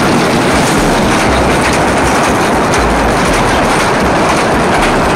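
Small open-sided tourist toy train's carriages rolling past close by, their wheels rattling steadily on the track.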